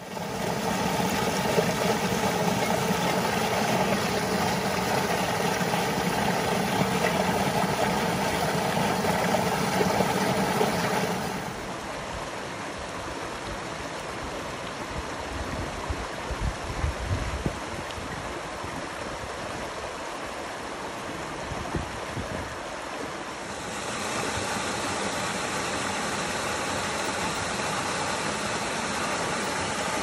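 Small creek waterfall splashing over rocks into a pool: a steady rush of water that drops in level about a third of the way in and rises slightly again later. A few brief low rumbles come around the middle.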